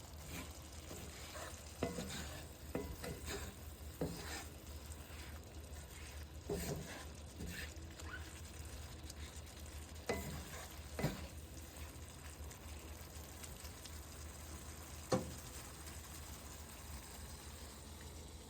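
Carne picada beef with peppers and onions sizzling as it fries in a pan on turned-up heat, cooking off its juices, with a utensil stirring and knocking against the pan now and then.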